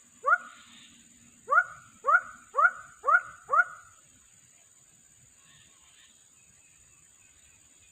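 A dog barking: one short bark, then five more in quick succession about half a second apart, each a sharp yelp that rises in pitch.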